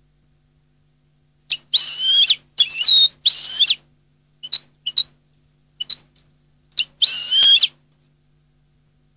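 European goldfinch (cardellino) singing. After a moment of quiet come three quick, high, twittering phrases, then a few single short call notes, then one more twittering phrase near the end.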